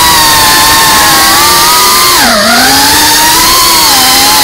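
FPV quadcopter's electric motors and propellers whining steadily. About two seconds in, the pitch drops sharply and climbs back as the throttle is eased off and reapplied.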